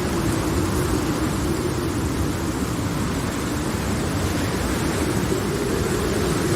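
Steady rain over a continuous low storm rumble, with a drawn-out wavering hum underneath.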